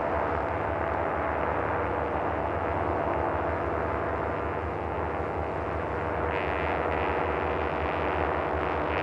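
Steady rush of wind and road rumble on a handlebar-mounted camera as a road bicycle rides along an asphalt road, muffled and dull with little treble.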